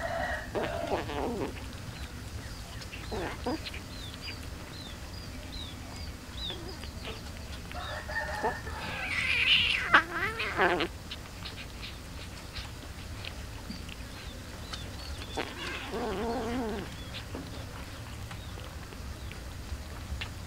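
A rooster crowing, with its longest and loudest crow about nine to eleven seconds in and shorter calls near the start and about sixteen seconds in.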